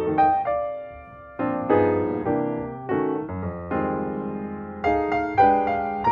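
Background piano music: soft chords struck and left to ring, with a short pause about a second in.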